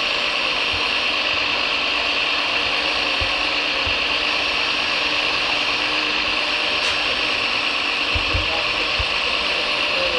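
Radio-controlled heavy-construction model's electric drive and gearing running with a steady, high gear whir.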